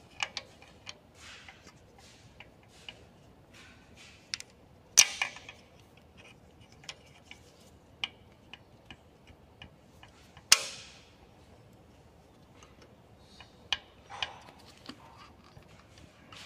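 Scattered light metallic clicks and taps from hand work on the exposed timing chain and sprockets of a Nissan KA24 engine. Two sharper, louder clicks come about five seconds in and again about ten and a half seconds in.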